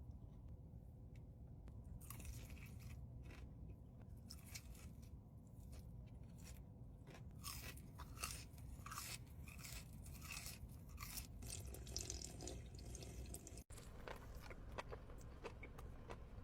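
Close-miked chewing of a crunchy sandwich: a run of short, crisp crunches begins about two seconds in and goes on irregularly, at a low level.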